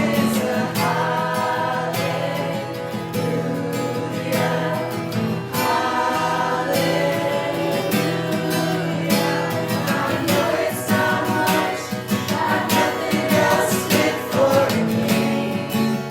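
A group of voices singing a Christian worship song with guitar accompaniment.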